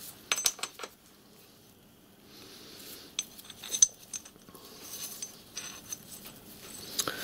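Small milled metal parts clinking and tapping against each other as they are handled, with a few light ringing clinks, the clearest about four seconds in.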